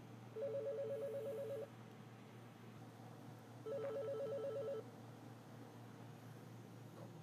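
Panasonic KX-TGM450S amplified cordless phone ringing for an incoming call at its low ringer setting: two rings, each a fast warble between two tones lasting about a second.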